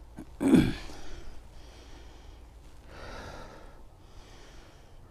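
A man breathing hard through the microphone, with a loud sharp exhale about half a second in and slower breaths after it.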